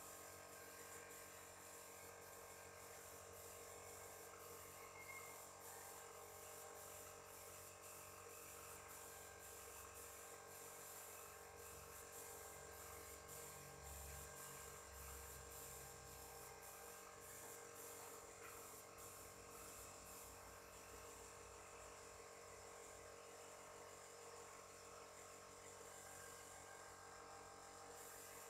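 Faint steady hum and buzz of a small electric air compressor running, with the high hiss of compressed air from a paint spray gun.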